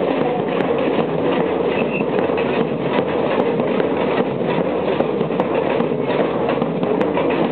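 Samba percussion band playing: bass drums and snare-type drums beating a dense, steady rhythm of quick strokes.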